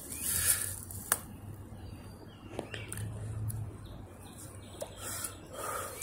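Faint rustling and a few sharp clicks of someone moving through brushy woodland undergrowth, twigs and leaves underfoot.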